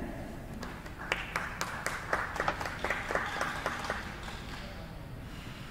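Sparse applause from a small crowd: a few people clapping for about three seconds, then dying away.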